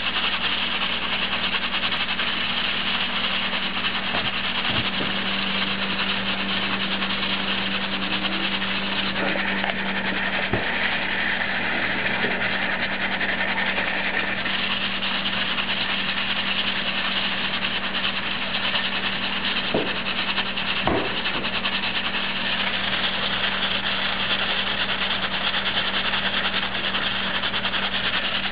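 Presto 6-quart aluminium pressure cooker at pressure on the stove, steam hissing steadily out past its weighted pressure regulator, with a steady low hum under it and a few faint knocks.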